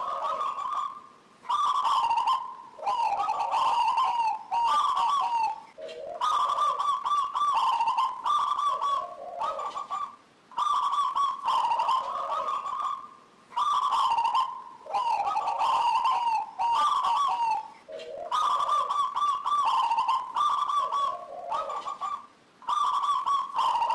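Local zebra dove (perkutut) in full song: phrase after phrase of trilling coos, with brief pauses between them. It is the steady 'gacor' song used as a lure recording to set other zebra doves singing.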